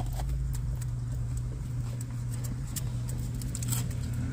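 A steady low hum with many small, irregular clicks and taps over it.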